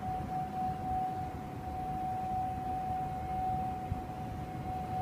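Unexplained noise in the sky: a steady tone held at one mid pitch without rising or falling, over a low rumbling background.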